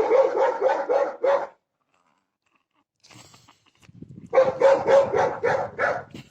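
A dog barking in quick repeated barks, about five a second: a burst of roughly a second and a half, then after a pause a longer run of barks through the last two seconds.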